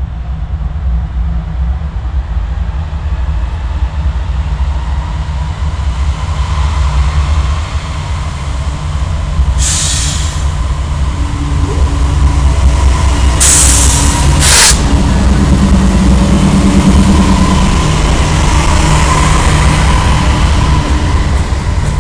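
GE D9-40C diesel locomotive running under load as it pulls a freight train out of a tunnel, its rumble growing louder as it draws close, then covered hopper cars rolling past on the rails. Two brief hisses come near the middle.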